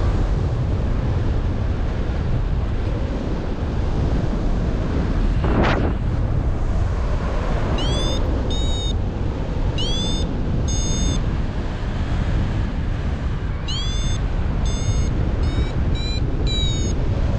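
Steady wind rushing over the microphone of a paraglider in flight. From about eight seconds in, a flight variometer beeps in short electronic tones, each sliding up quickly at its start, in small groups that come faster, about two a second, near the end: the beeping variometer signals that the glider is climbing.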